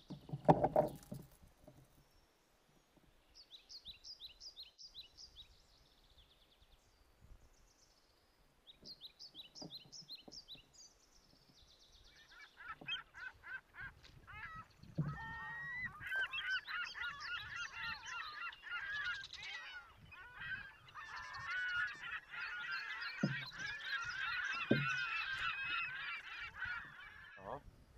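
A flock of birds calling: short runs of quick, high calls at first, then from about twelve seconds a dense chorus of many overlapping calls that stops just before the end. A few dull knocks sound underneath.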